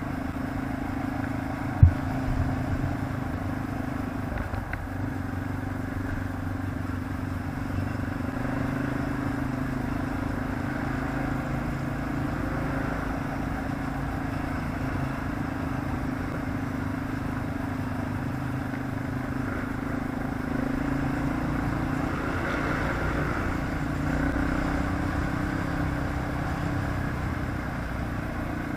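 ATV engine running steadily while riding, its pitch holding fairly even with slight swells later on. A single sharp knock sounds about two seconds in.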